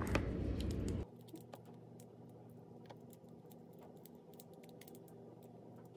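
Faint, scattered light clicks and taps of a Rivarossi 0-8-0 model steam locomotive's chassis, wheels and side rods being fitted together by hand. A low rumble in the first second cuts off suddenly about a second in.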